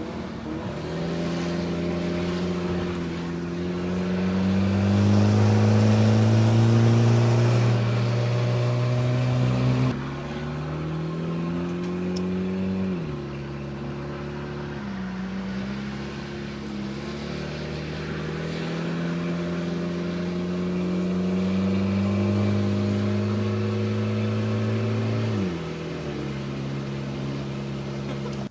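Car engine running under way, accelerating through the gears: its pitch climbs slowly and then drops at each of a few gear changes.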